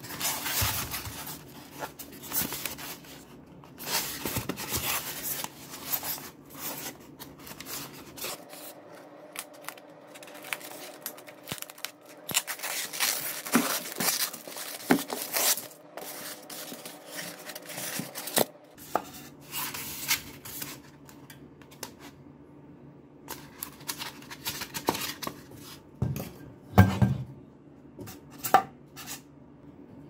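Brown packing tape being peeled and torn off a styrofoam box, with the foam rubbing and scraping as the box is handled and worked open, in irregular bursts. A thump near the end.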